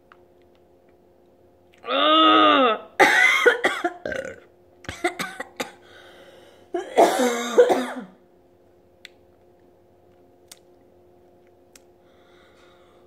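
A woman gagging and coughing after swallowing straight lemon juice. There is a drawn-out strained groan about two seconds in, then harsh coughing and throat clearing, and another groaning cough about seven seconds in.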